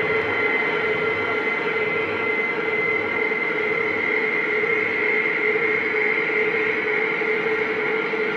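A steady droning soundscape playing as the stage soundtrack: an even rushing noise with two unbroken held tones, one in the middle and one high.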